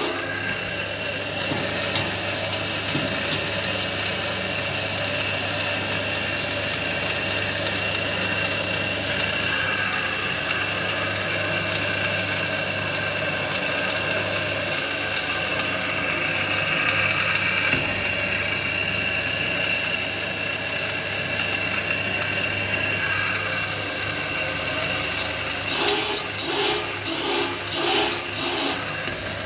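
Electric saw-sharpening machine running steadily, its grinding wheel dressing the teeth of a 1 m diameter circular saw blade with a constant hum and a high whine. Near the end, a quick series of rasping grinding strokes comes about three every two seconds as the wheel works from tooth to tooth.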